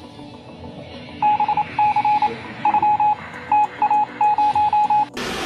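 Quick runs of short electronic beeps, all on one pitch, starting about a second in and stopping abruptly near the end.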